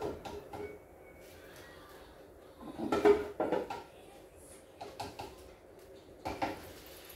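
Slotted metal skimmer clinking and knocking against a glass bowl of fried dough balls, in a few short clatters, the loudest about three seconds in.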